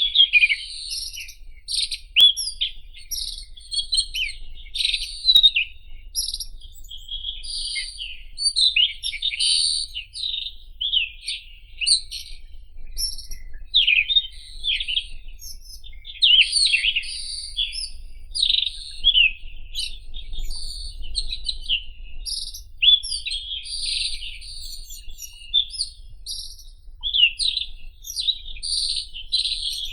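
White-throated robin (Irania gutturalis) singing: quick, varied phrases following one another with barely a pause.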